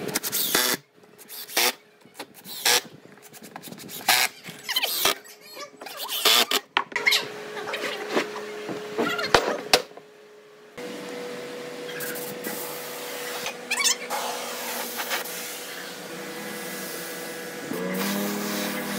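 Cordless impact driver driving wood screws into a pine rail in a string of short, loud bursts. After about eleven seconds a steadier workshop noise with a faint constant tone takes over.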